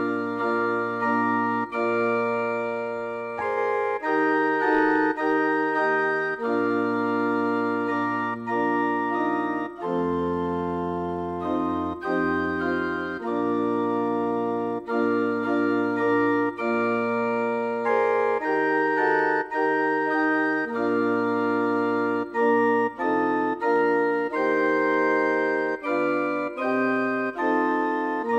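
Organ playing slow music in sustained chords over a bass line, the chords changing every second or two; it comes in suddenly at the start.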